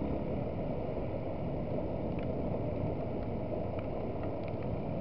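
Yamaha WR125 dirt bike's single-cylinder engine running at an even throttle while riding, mixed with wind and road noise on the camera's microphone.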